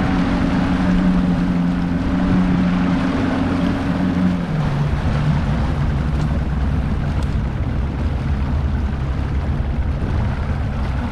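1984 Johnson 120 hp V4 two-stroke outboard running a bass boat at speed, over a hiss of wind and water. About four and a half seconds in, the engine note steps down to a lower steady pitch as the revs come down.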